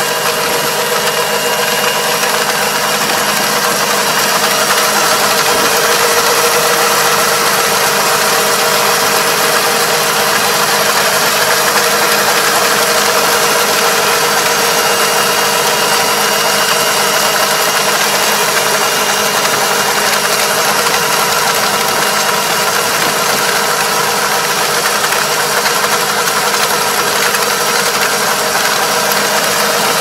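Kubota KL270 half-track tractor's diesel engine running steadily under load as it drives a Kobashi levee-forming machine along a paddy edge, the implement shaping a mud levee.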